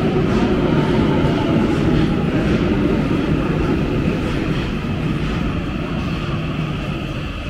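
Tokyo Metro Marunouchi Line 2000-series subway train running into an underground station platform: a steady low rumble of wheels and motors with faint regular clicks, easing off toward the end as the train slows to stop.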